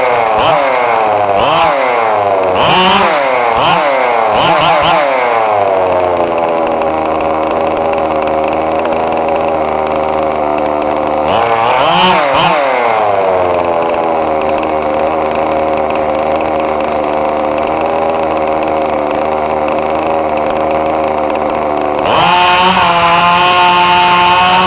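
Radio-controlled car's motor running at high pitch, rising and falling several times in quick succession, then holding a long steady drone with one more rise and fall partway through; near the end the tone changes suddenly.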